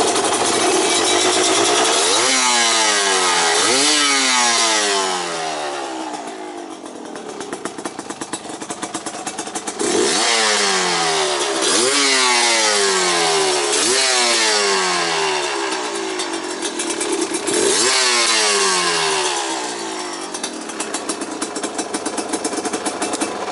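Yamaha DT230 Lanza's two-stroke single-cylinder engine, breathing through a PRO SKILL expansion chamber and silencer, being revved hard: held high, then blipped several times, each sharp rise in revs followed by a long falling note back toward idle.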